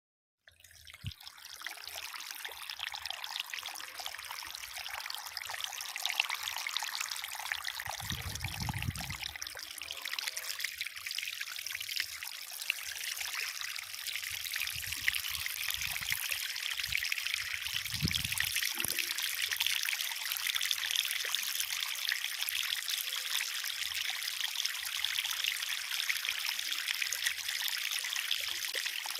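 Water trickling and splashing steadily over a miniature concrete waterfall, starting suddenly about half a second in. A few faint low thuds are heard around the middle.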